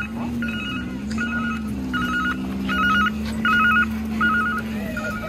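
Telephone ringing with an electronic warble: short bursts of a fast trill between two tones, repeating about every three-quarters of a second, over a steady low hum.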